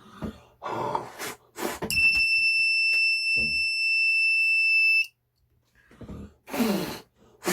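Homemade breathalyser kit's buzzer alarm sounding one steady high beep for about three seconds, then cutting off suddenly, set off by breath on its alcohol sensor. Short breathy puffs come before it and again near the end.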